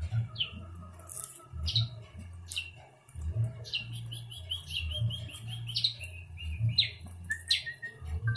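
Small bird chirping: short sharp notes repeated every second or so, with a quick trill of rapid notes near the middle. A low, regular beat runs underneath.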